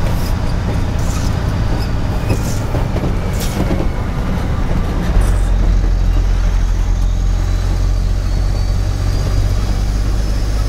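Truck's engine and road noise heard from inside the cab while driving, a steady low drone that grows louder about five seconds in. A few light clicks in the first few seconds.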